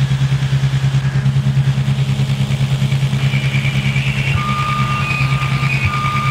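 Electronic drone from a live effects-pedal and mixer setup: a loud, low hum throbbing several times a second. Thin, steady high tones join it about halfway through.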